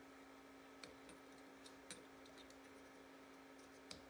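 A few faint clicks of steel rollers being set by hand into the cage of a Polaris front differential's roller clutch, over a steady low hum.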